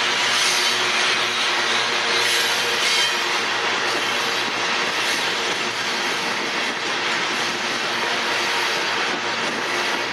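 Loaded coal hopper cars of a freight train rolling past, a steady rumble and rattle of steel wheels on rail.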